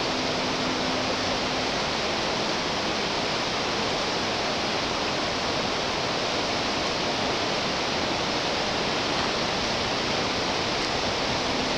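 Creek water rushing steadily, an even hiss that does not change.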